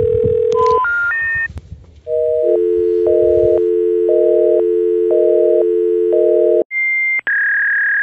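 Telephone network tones from a failed mobile call. A steady tone breaks into three short tones stepping upward, the special information tones of a number not in service. These are followed by a repeating two-note tone pattern and, near the end, two short high beeps.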